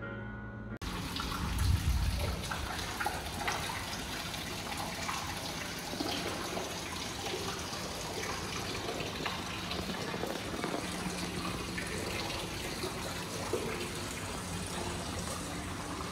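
Water running and splashing steadily, coming in abruptly about a second in, with a brief low rumble about two seconds in.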